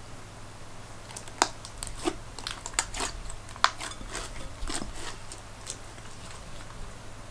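Handmade glitter slime with foam beads and confetti being squished and pressed by hand in a glass bowl, giving a run of sharp pops and crackles from air pockets bursting and beads crunching. The pops start about a second in, are loudest in the middle and thin out before the end.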